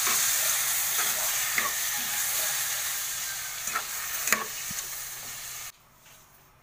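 Beef pieces sizzling as they are sautéed in a stainless steel pot, with a metal spoon stirring and now and then clicking against the pot. The sizzle fades slowly and cuts off suddenly near the end.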